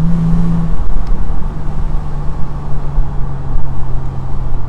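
Toyota 4Runner's 4.0-litre V6 with a Borla S-Type stainless cat-back exhaust, heard from inside the cabin while driving in second gear. The exhaust note is strongest in the first second, then holds a steady drone whose pitch sinks slowly as the revs come down.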